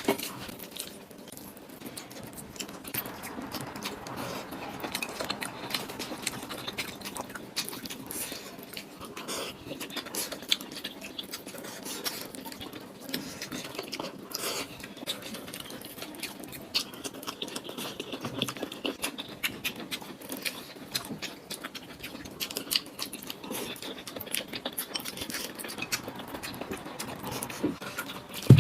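Many light, irregular clicks and taps, scattered and continual, with no voice.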